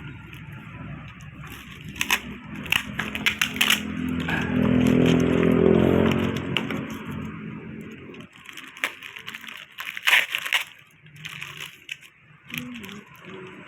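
Packaging being opened by hand, cardboard and plastic crackling and crunching in sharp bursts. A motor vehicle drones past in the middle, swelling and fading.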